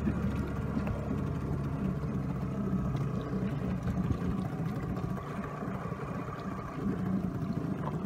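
Small boat's engine idling steadily.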